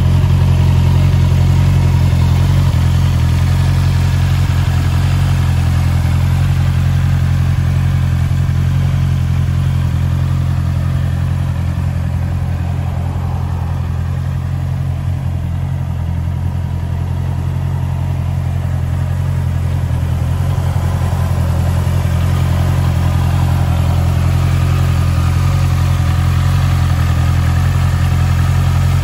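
2023 Honda CBR650R's 649 cc inline-four engine idling steadily, a little quieter around the middle.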